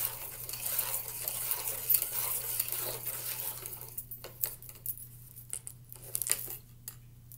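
Close handling noise from classroom materials being moved: a scraping, rubbing sound for about the first four seconds, then a run of light, irregular clicks.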